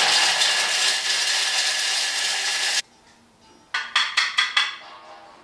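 Thermomix motor spinning at high speed, grinding hard parmesan into fine crumbs, with the cheese rattling against the bowl. It cuts off abruptly about three seconds in, followed a second later by a quick run of four or five sharp clattering knocks.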